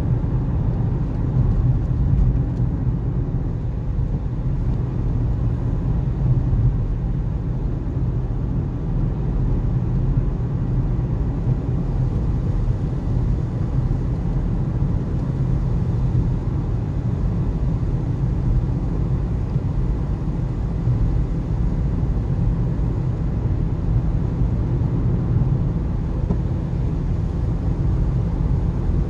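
Steady low road rumble of a car driving, heard from inside the cabin.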